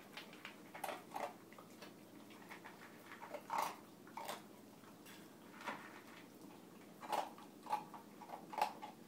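Small dog eating dry kibble from a bowl: irregular crunches and clicks, a few louder than the rest.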